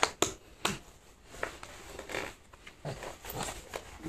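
Irregular light knocks and taps on a hardwood floor, with rustling, as a baby is handled and moved about on it.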